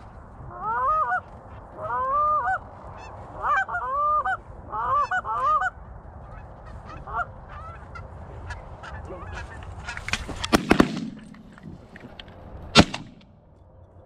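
Canada goose honks and clucks in quick runs of short, pitched calls for the first six seconds, then fewer. Near the end come a loud cluster of knocks with a dull thud, and about two seconds later a single sharp crack.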